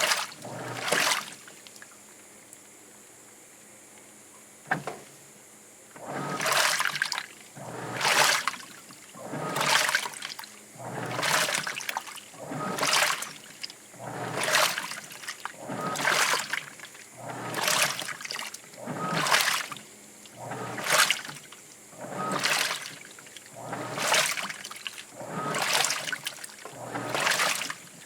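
Washing machine in its wash cycle, clothes and water sloshing in a regular swish about every second and a half. The swishing pauses for about four seconds near the start, with a single click, then resumes.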